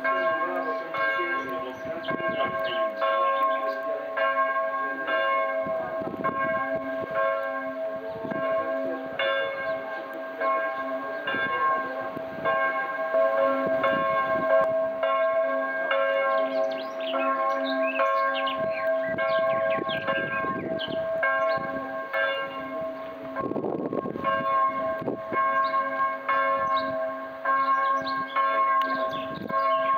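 Church bells ringing, struck again and again so their tones overlap and hang in the air without a break.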